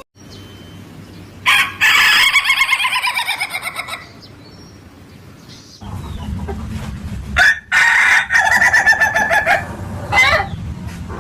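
Ayam ketawa (laughing chicken) roosters crowing twice, each crow a long run of quick stuttering notes that sounds like laughter.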